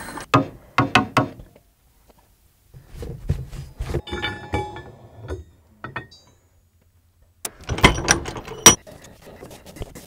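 Metal being handled: clusters of sharp clicks, clinks and knocks, with a brief metallic ring near the end.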